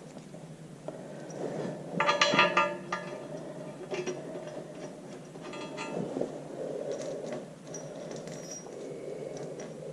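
Steel bolts and washers clinking as they are handled and started into a tractor engine's rear plate. There is a loud cluster of ringing clinks about two seconds in, another near the middle, and scattered lighter clicks.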